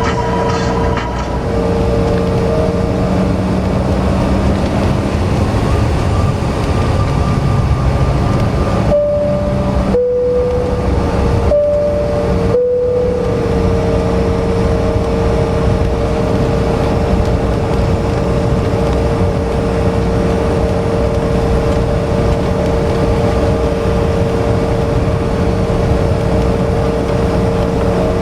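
Steady cabin noise of a Bombardier CRJ900 regional jet, heard from inside: a continuous roar of engine and airflow with a steady engine hum. About ten seconds in, the hum briefly shifts in pitch and the sound drops out for moments, then settles back to a steady tone.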